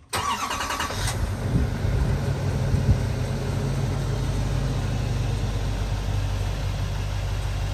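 Duramax turbo-diesel pickup idling steadily, heard at the exhaust tip, with a brief higher-pitched pulsing sound in the first second.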